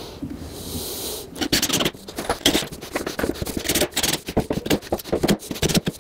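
DeWalt cordless drill/driver driving construction screws into a wooden frame: a steady whir for about the first second, then a fast, irregular rattle of clicks for the rest.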